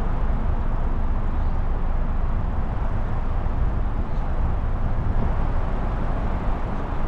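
Steady outdoor rumble and hiss, heaviest in the deep low end, like wind buffeting the microphone. It cuts off suddenly at the end.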